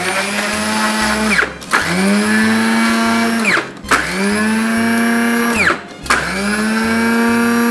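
Electric mini chopper run in four pulses of about two seconds each, its motor humming steadily and falling in pitch as it slows between pulses, while it chops orange peel.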